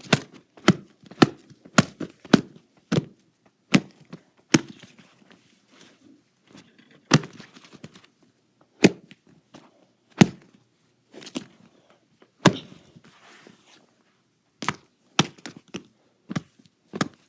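An irregular series of sharp knocks and thuds, about twenty in all, some coming in quick pairs, from things striking a hard surface during a staged toy fight.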